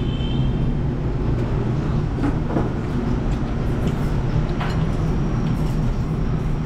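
Steady low background rumble, with a few light clinks of a spoon and fork on a plate, about two seconds in and again near five seconds.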